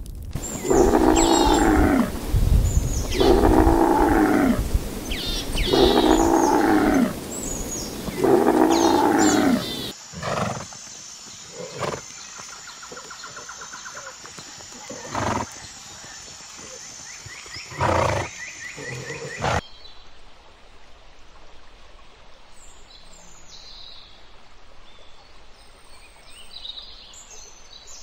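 A large animal calls four times in loud, long calls that rise and then fall in pitch. These give way to a few short, scattered calls over a steady high whine, and then to faint bird chirps.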